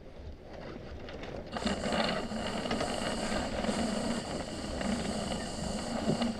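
Steady rushing of wind and water around a sailboat under way, growing abruptly louder about a second and a half in.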